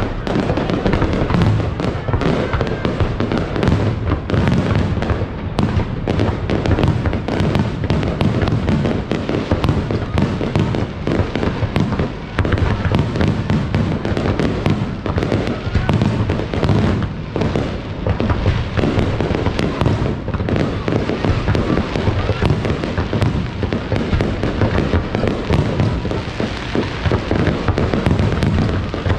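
Fireworks display: a rapid, unbroken barrage of bangs.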